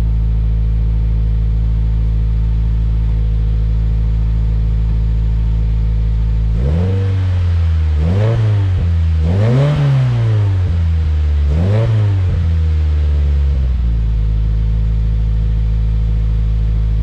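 Subaru WRX 2.0 L turbocharged flat-four idling through a Cobb catted J-pipe and Cobb titanium cat-back exhaust, with stock header. About halfway through it is revved in several quick blips, to around 3000 and then 4000 rpm, the highest near the middle of the run. It then drops back to a steady idle.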